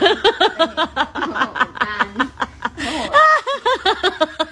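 A person laughing hard in quick repeated bursts, rising to a higher-pitched squeal a little after three seconds in.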